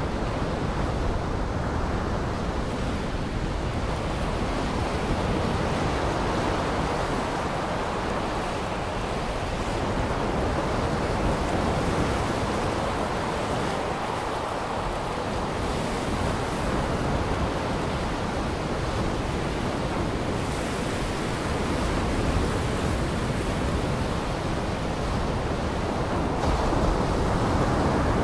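Surf breaking on a shore: a steady rushing noise that swells and eases slowly.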